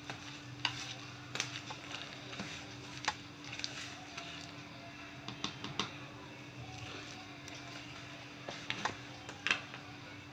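Wire whisk beating a thick palm-fruit batter in a plastic bowl: irregular clicks and taps of the wires against the bowl with soft wet stirring, over a faint steady hum.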